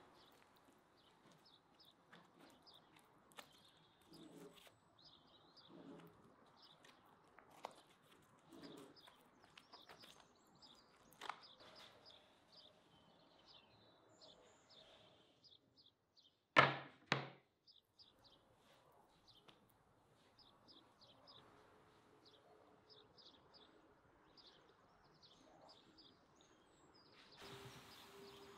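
Faint birds chirping throughout, behind soft handling thumps of food preparation. A sharp double knock about two-thirds of the way through is the loudest sound. Near the end a steady hiss comes in.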